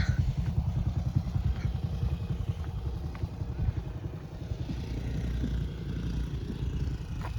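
A motorbike-type two-wheeler's engine running steadily while riding, its rapid firing pulses dominating the low end.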